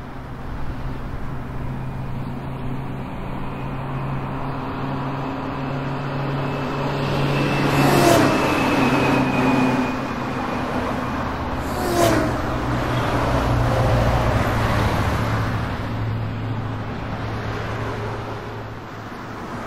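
Car engines running steadily, with two vehicles passing by about eight and twelve seconds in, each with a quick drop in pitch.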